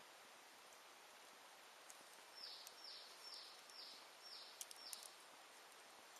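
Faint crackle of a wood fire with a few sharp pops, while a bird calls a run of six short, high, downward-sliding notes starting about two seconds in.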